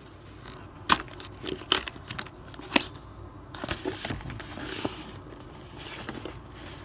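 Cardboard packaging sleeve being torn and slid off a GoPro's case: crackling and scraping of cardboard, with sharp snaps about a second in, near two seconds and near three.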